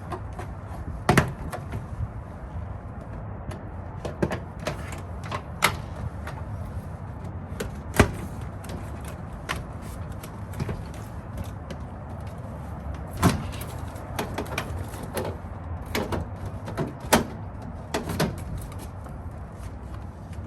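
Interior door trim panel of a 1980 Toyota Celica being worked off the door: irregular sharp clicks, knocks and rattles of the panel and its clips, over a steady low background rumble.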